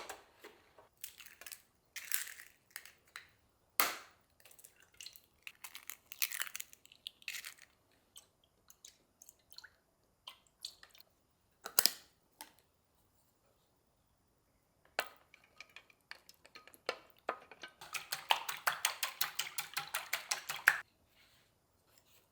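Kitchen utensil and food-preparation sounds: scattered clicks, knocks and scrapes, then near the end a fast even run of about seven strokes a second for about three seconds.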